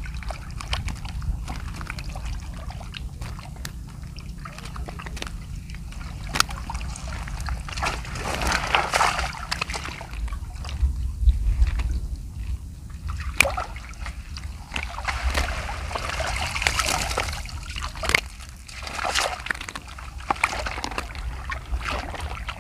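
Water sloshing and splashing in uneven surges while fish are worked out of a fish corral (bunsod) catch, with scattered sharp splashes and a steady low rumble underneath.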